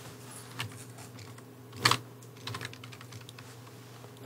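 A few scattered keystrokes on a computer keyboard, one louder clack about two seconds in and a quick run of lighter taps just after, over a low steady hum.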